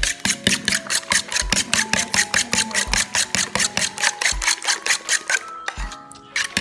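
Metal fork beating raw eggs in a bowl, clicking and scraping against the sides in a fast, even rhythm of about six strokes a second, with a short pause near the end. Background music plays under it.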